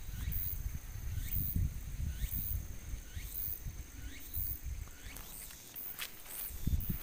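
Insects calling in short, high pulses about once a second over a steady thin high tone, with low wind rumble on the microphone.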